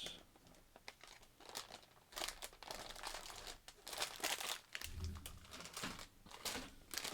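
Plastic snack packaging being handled and pulled open, a run of crinkling rustles, with a dull bump about five seconds in.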